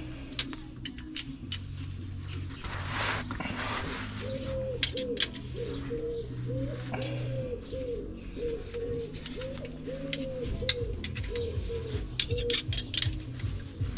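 A pigeon cooing, a repeated phrase of low soft coos through the middle of the stretch, over scattered sharp clicks and taps from hands and tools at work under the car.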